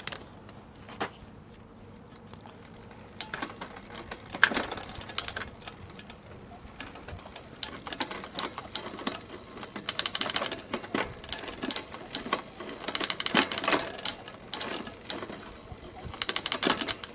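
Bicycle drivetrain being worked by hand: about three seconds in, a run of rapid clicking from the chain and rear hub starts and goes on as the gears are shifted over and over to stretch a new shift cable.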